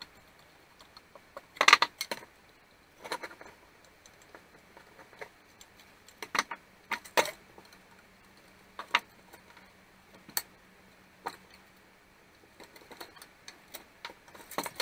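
Scattered clicks and light metallic clinks of tools and small parts being handled while a chainsaw's pull-start assembly is taken apart, the loudest cluster about two seconds in.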